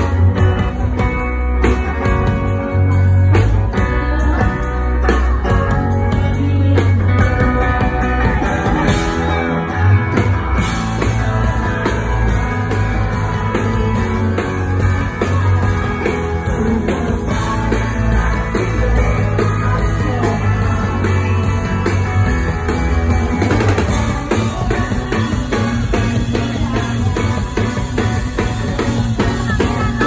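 Live rock band playing: a woman sings over electric guitars and drums with a steady beat.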